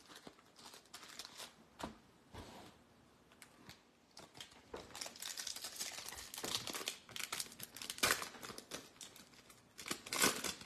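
Trading-card packs being opened: foil wrappers crinkling and tearing in a series of short, sharp rustles, busiest midway and loudest near the end.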